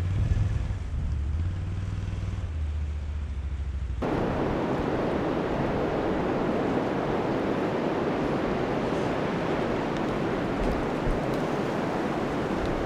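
An ATV engine running at steady low revs, cut off suddenly about four seconds in by strong, steady wind noise.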